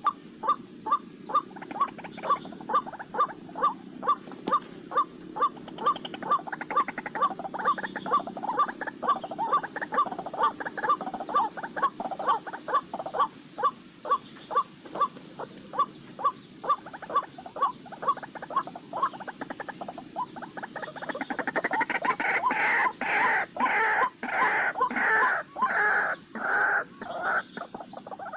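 White-breasted waterhen calling: a long monotonous series of short croaking notes, about two a second. The notes become louder and harsher in the last third.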